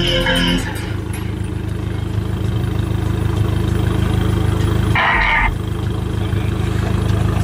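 Deep, steady low drone from a car fitted with a big subwoofer system, with a short higher-pitched burst about five seconds in.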